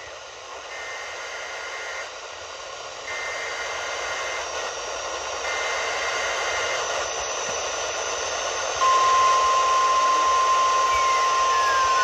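Radio receiver playing an Emergency Alert System test through heavy hiss: three short bursts of the digital header tones, then about nine seconds in the steady, loud attention tone begins. A faint falling whistle slides across near the end.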